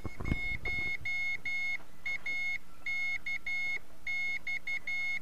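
Morse code (CW) from the 10-meter ham radio beacon: one high steady tone keyed on and off in dots and dashes, in repeating groups. A low thump of the hand microphone being set down on the bench comes at the start.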